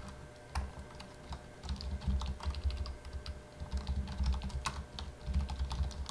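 Typing on a computer keyboard: a run of irregular key clicks with dull low bumps beneath them, as a short word is typed.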